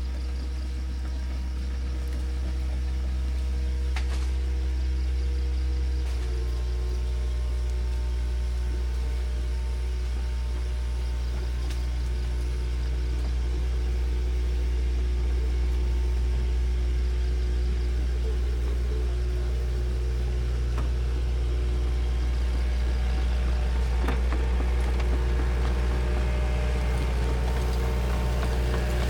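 Bulldozer's diesel engine running steadily while it works, its note shifting about six seconds in, with a few faint knocks.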